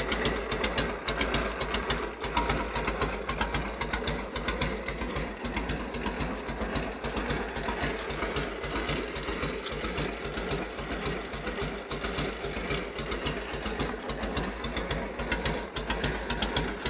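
Harley-Davidson WL 45 cubic-inch flathead V-twin idling with a steady, uneven 'patataj-patataj' beat.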